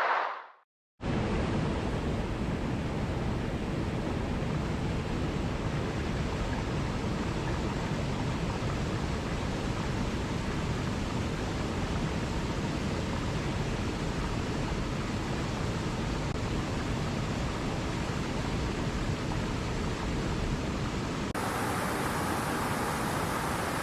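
Running water rushing steadily, an even full hiss. It cuts in after a brief silence about a second in and turns brighter near the end.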